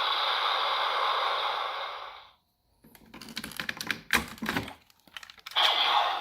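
DX Cyclone Riser toy transformation belt playing a steady hissing sound effect that cuts off about two seconds in. Then come small plastic clicks and rattles as the toy's parts are handled, and a short burst of the hiss near the end.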